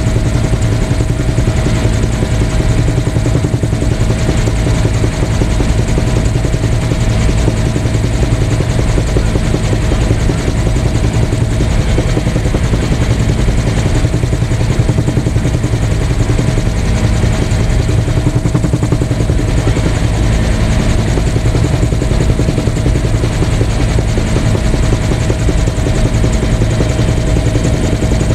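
Helicopter in steady cruise heard from on board: a loud, unchanging drone of rotor and engine with a constant whine running through it.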